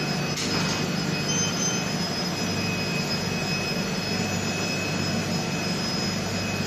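Steady machine-room hum from Sodick electrical discharge (EDM) machines running, with a couple of thin, steady high-pitched tones over it. A short hiss comes about half a second in.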